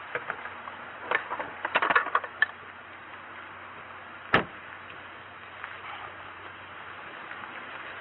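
Handling at a patrol car's open door: a quick run of clicks and rattles, then one sharp knock about four seconds in, over a steady hiss.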